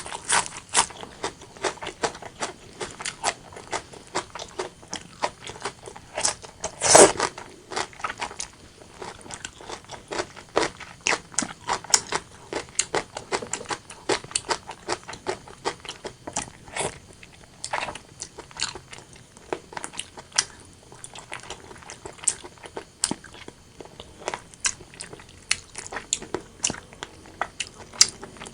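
Close-miked chewing of braised pork belly and rice: a dense, irregular run of wet mouth clicks and smacks, with one louder burst about seven seconds in.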